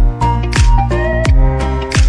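Background music with a steady beat: a deep thump about every three quarters of a second under a sustained melody.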